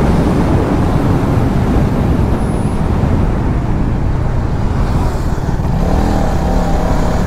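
Motorcycle at high speed heard from the rider's camera: steady wind rush over the microphone over the Hero Karizma XMR 210's single-cylinder engine running at high revs.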